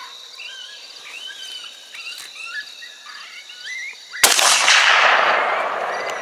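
A single high-power rifle shot about four seconds in, its report rolling and fading away over about two seconds. Before it, birds sing in short whistled phrases over a steady high-pitched insect buzz.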